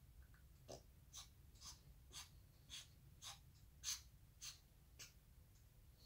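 African grey parrot mimicking a dog's sniffing: a run of about nine short, quick sniffs, roughly two a second, the loudest a little past the middle.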